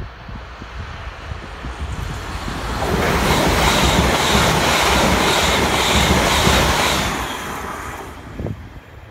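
ScotRail electric multiple unit passing: a rushing of wheels on rail that swells about two seconds in, stays loud for about four seconds, then fades near the end. Wind buffets the microphone throughout.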